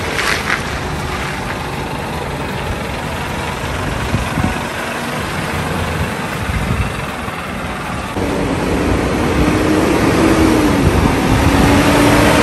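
UD Trucks Quon heavy truck's diesel engine running as the truck drives by, with tyre noise. About eight seconds in it grows louder as the truck comes up close, with a steady engine drone that dips briefly in pitch.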